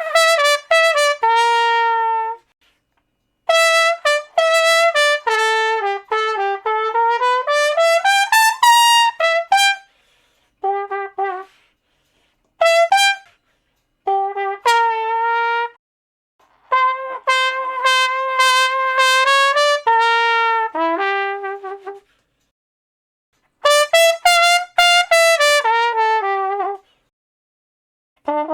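Solo trumpet playing short melodic phrases of quick notes and held tones, with brief silences between the phrases.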